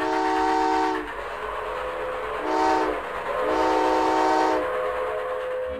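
A train's multi-note chord whistle sounding three blasts: a long one, a short one about two and a half seconds in, then another long one. A single fainter note lingers on afterwards.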